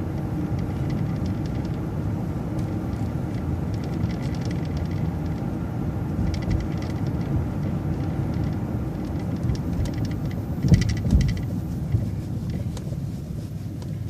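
City bus driving, heard from inside: steady engine and road noise with patches of light rattling. A thump comes about eleven seconds in.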